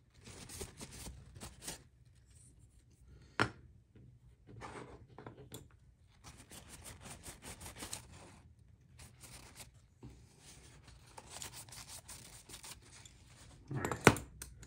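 Paper towel rubbing and wiping over a titanium knife handle scale in repeated bursts, with one sharp click about three and a half seconds in. Near the end comes a louder knock as the scale is set down on a cutting mat.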